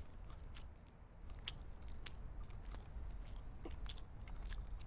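Close-up mouth chewing: irregular wet clicks and crunches of food being bitten and chewed, over a low rumble.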